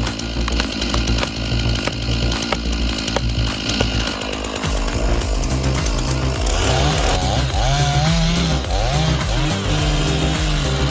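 A chainsaw engine running at high revs, with background music's steady beat and bass line mixed in. From a little past the middle, the pitch rises and falls again and again as it is revved up and down.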